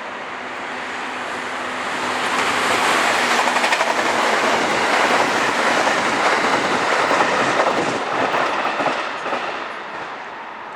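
A JR Freight EF210 electric locomotive and its freight train passing by, the noise swelling to a peak from about two seconds in and fading after about nine seconds, with a dense run of clicks from the wheels over the rails.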